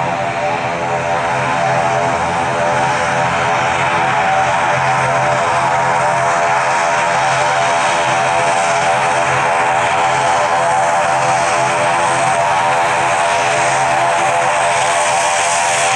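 Twin turboprop engines of an ATR 72 airliner taxiing: a steady propeller drone with a buzzing engine hum, growing slightly louder over the first few seconds as the plane comes closer.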